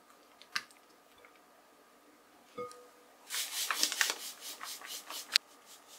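Silicone spatula beating and scraping thick cream cheese against a glass mixing bowl: after a couple of soft clicks and a tap, a rasping, scraping run of strokes lasting about two seconds, ending in a sharp click.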